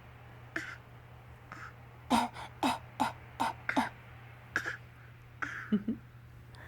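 Fake, forced coughing: short coughs and throat-clearing sounds, with a quick run of about six coughs in the middle and a few more near the end.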